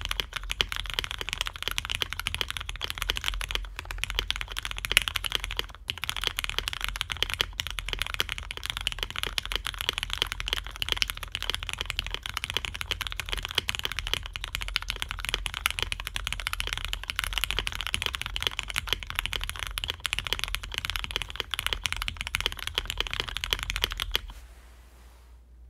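Fast continuous typing on a mechanical keyboard with Cherry Hyperglide Black linear switches, doubleshot Cherry keycaps and a carbon-fibre plate with no foam dampening, a deeper-sounding build; the typing stops near the end.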